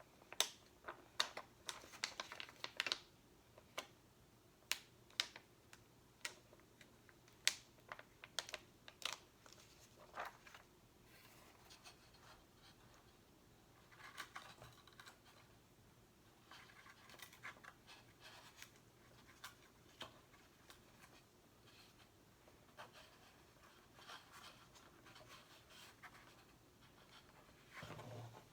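Close-up ASMR handling of stickers and a sticker box: scattered light taps and clicks, with short stretches of crinkling and sticky peeling.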